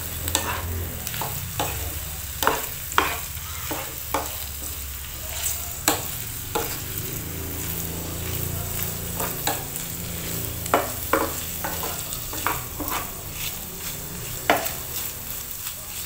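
A wooden spatula stirring and scraping shredded chicken strips around a nonstick frying pan, with irregular taps and scrapes against the pan over a low sizzle of the meat frying in butter and oil.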